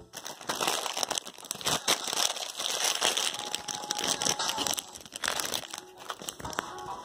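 Packaging, such as a plastic snack bag, being crinkled and handled, giving many small irregular crackles.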